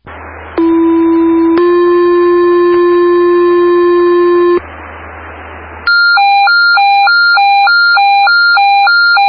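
Fire dispatch paging tones over a scanner radio channel, with radio hiss in the gaps. First a two-tone page, a low tone for about a second and then a slightly higher tone held for about three; about a second later, a high-low warbling alert tone switching pitch about twice a second. The tones alert volunteer firefighters to a call.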